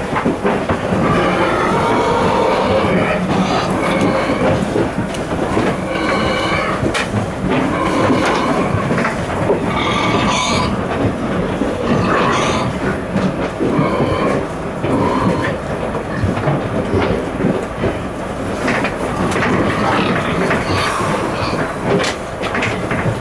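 Pigs squealing inside a livestock transport truck: repeated short high squeals, one after another, over a steady rumble.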